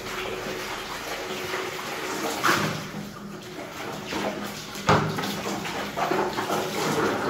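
Tap water running and splashing as a plastic basin is rinsed in a stainless steel sink, with two sharp knocks about two and a half and five seconds in.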